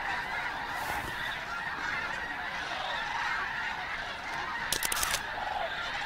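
A large flock of snow geese with sandhill cranes mixed in, calling in a dense, unbroken chorus. About five seconds in, a short run of sharp clicks sounds over it.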